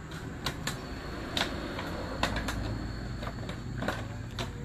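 Yamaha NMAX's single-cylinder engine running with a steady low hum and sharp, irregular ticks over it. This is the rough ticking that the mechanic puts down to the valve rocker arms or the camshaft.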